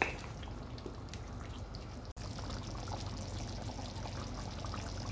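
Chicken karahi gravy with yogurt simmering in a pan on a gas stove: a steady soft bubbling with many small pops. A brief tap right at the start.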